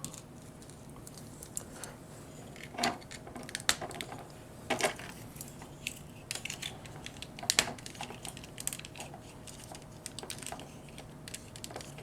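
Scattered light clicks and taps from a die-cast and plastic toy robot figure being handled, as hands and small parts are swapped and fitted for posing.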